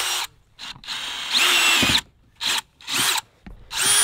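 Cordless drill motor whirring in several short trigger bursts, then running steadily near the end as the bit starts into a PVC pipe.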